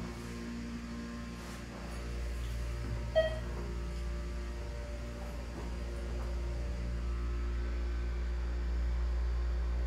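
Lift car travelling with a steady low hum, and a single short electronic chime about three seconds in.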